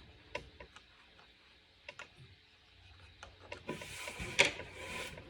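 Light clicks and knocks of objects being handled. About three and a half seconds in, a second and a half of rustling or scraping follows, with one sharp click in the middle.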